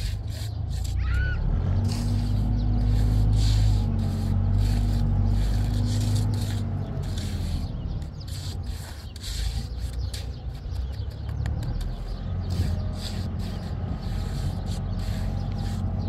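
Hand trowel scraping and smoothing a layer of grey mortar in many short strokes, over a low steady rumble that is loudest in the first half.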